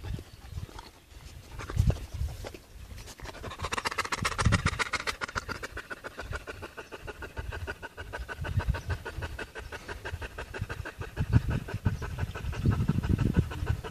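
Dog panting fast and steadily, starting a few seconds in, with dull low thumps throughout.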